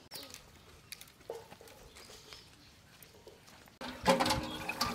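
Faint clicks at first, then about four seconds in a hand pump being worked starts up loud, with a pitched squeal and knocks from its handle.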